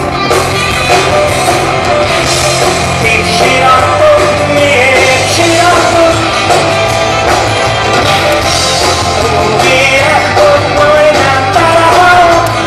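Live rock band playing loud: a male singer singing into a microphone over electric guitar and drums.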